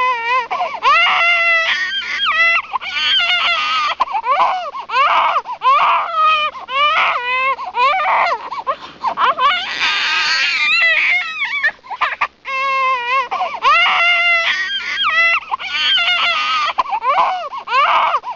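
A baby crying hard and without stopping: loud, high-pitched wails that waver in pitch, broken by short gasps for breath, with one brief pause about twelve seconds in.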